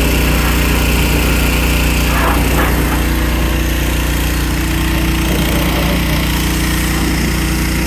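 Pressure washer running steadily: a small engine's even drone with the hiss of the water spray over it.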